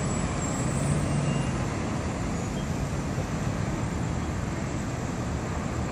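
Steady low rumble of an approaching Florida East Coast diesel freight train.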